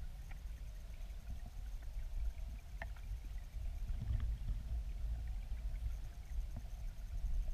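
Low, steady rumble of river water moving past an underwater camera in a weir pool, with a few faint, sharp clicks scattered through it.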